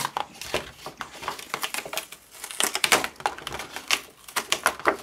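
Gray cardstock being peeled off a sticky Cricut cutting mat by hand, making an irregular run of crackles and ticks, with louder bursts about halfway through and near the end.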